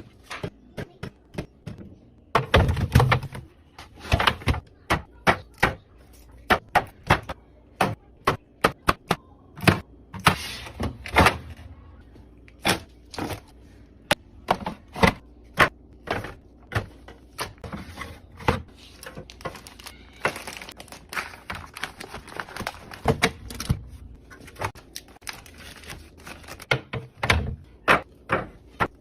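Irregular knocks, clicks and thunks of containers and groceries being set down and arranged in a refrigerator, with a few heavier clunks among the lighter taps.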